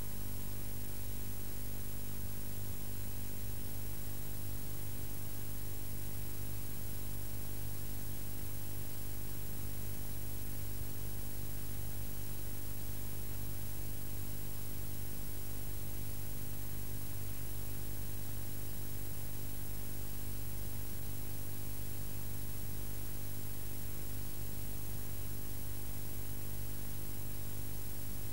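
Steady electrical mains hum with a constant hiss, unchanging throughout, with no other sound on top.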